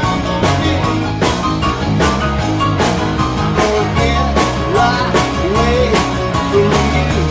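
A rock band playing a song with a steady drum beat.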